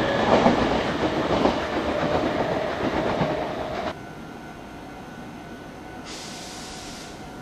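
Meitetsu electric train passing close by at speed, its wheels clattering over the rail joints as the sound fades away. About four seconds in it cuts off abruptly to a much quieter steady hum with a faint high tone.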